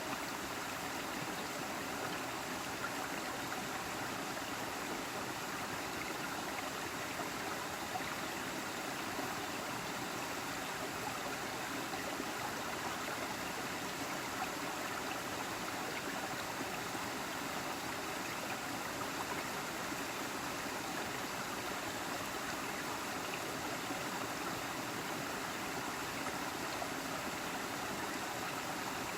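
Waterfall rushing and splashing over rocks: a steady, even rush of water.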